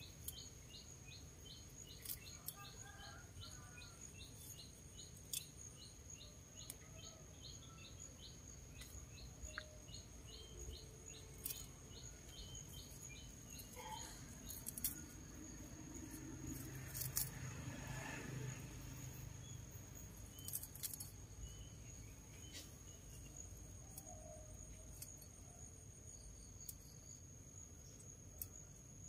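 Faint outdoor insect sound: a steady high-pitched trill, with a quick repeated chirp about three times a second for the first dozen seconds. Scattered soft clicks and rustles of rau răm stems being cut by hand with a small knife.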